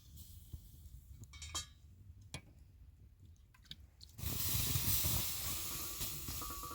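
A few faint clicks, then about four seconds in a sudden loud hiss that slowly fades.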